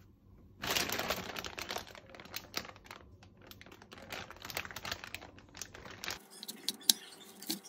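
Clear plastic produce bag crinkling and crackling as hands handle it. Dense crackle starts about half a second in and is loudest for the first second or so, then thins to scattered sharp crackles and clicks.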